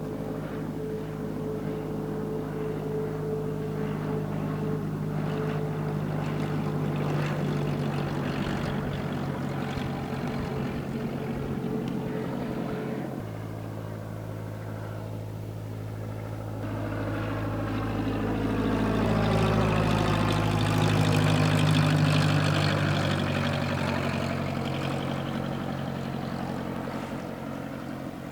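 Cessna 172 piston engine and propeller droning steadily, changing abruptly about a third of the way in. It then grows louder to a peak about three quarters of the way through and fades as the plane passes.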